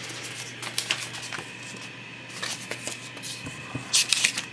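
Paper sticky notes being handled on a tabletop: short bursts of paper rustling and crinkling in three clusters, the loudest near the end.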